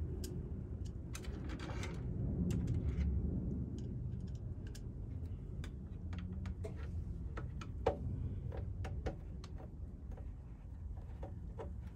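Irregular light clicks and taps of hands working on a plastic sprinkler-controller enclosure, with one sharper knock about eight seconds in, over a steady low rumble.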